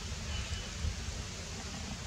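Steady outdoor background noise: an even hiss over a low, fluctuating rumble. There is a faint short high tone about half a second in.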